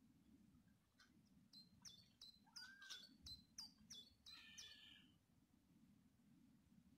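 A songbird sings one faint phrase of about ten quick chirping notes, each dropping in pitch, starting about a second in and ending in a buzzier note about five seconds in.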